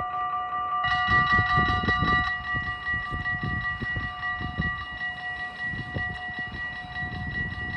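Level-crossing warning bells ringing steadily as the barriers come down, with a low gusty rumble underneath that is loudest about a second in.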